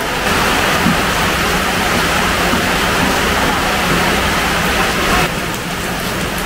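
Heavy typhoon rain falling steadily, a dense, even hiss; its upper part thins a little about five seconds in.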